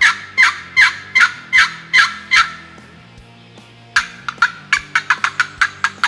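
Turkey yelps: a run of about seven evenly spaced, loud yelps, then, after a pause of about a second and a half, a faster run of about a dozen that speeds up toward the end.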